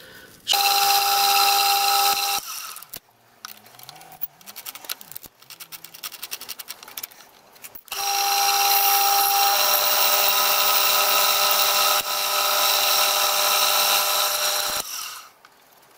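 Pillar drill running as it drills a hole through a brass motion plate: a steady whine for about two seconds, then several seconds of light clicks and tapping, then the drill runs steadily again for about seven seconds before stopping.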